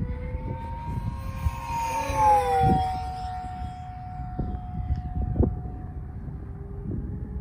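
Whine of an E-flite Rare Bear RC plane's electric motor and propeller as it flies past. It grows louder and drops in pitch about two seconds in as the plane passes, then holds a steadier, lower tone.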